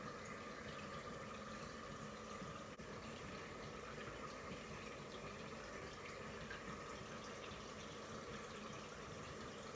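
Faint, steady kitchen background noise: an even hiss with a low hum and no distinct events, apart from one faint tick about three seconds in.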